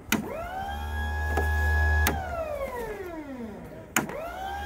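Loader crane's electric motor switched on with a click and whining up to a steady speed with a low hum. About two seconds in it clicks off and winds down in a long falling whine, then clicks on and spins up again near the end.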